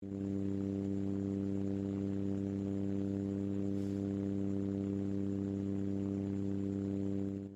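A steady low electrical hum with a stack of overtones, starting and stopping abruptly.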